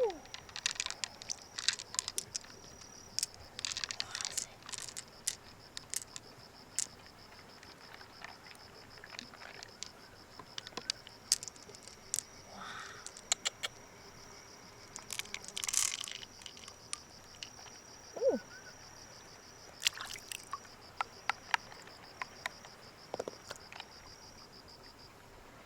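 Freshwater mussel shells clicking and scraping as they are handled and opened, with scattered sharp clicks and a few longer scrapes. A steady high-pitched pulsing buzz runs underneath and stops shortly before the end.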